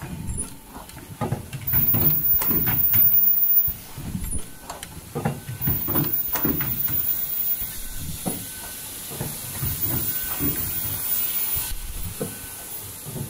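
Richpeace foldable N95 mask-making machine running: a string of irregular mechanical clunks and knocks from its moving parts, over a steady hiss.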